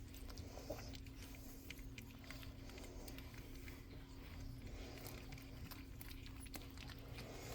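Four-week-old pug puppies nursing: faint, irregular wet clicks and smacks of suckling over a steady low hum.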